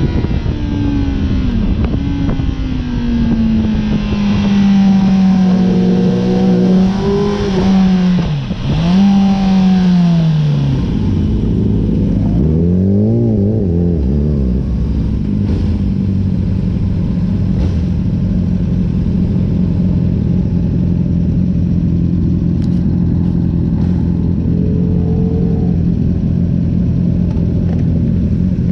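Honda sport bike's engine, heard from the rider's seat: revs falling as the bike slows, a couple of rises and drops, then a few quick throttle blips about halfway through, after which it settles into a steady idle for the rest.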